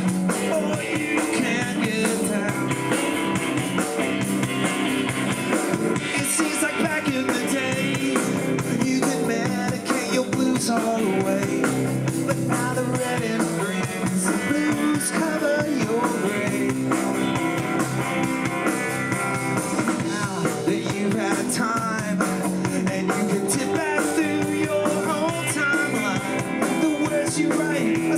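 Live rock band playing with electric guitars, bass guitar and drum kit.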